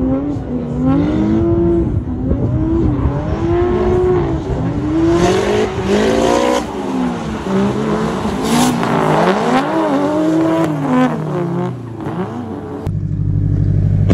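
Drift cars' engines revving hard, their pitch sweeping up and down again and again as the cars slide through the course, with a hissing rush about nine seconds in. Near the end it cuts to a close, steady engine idle.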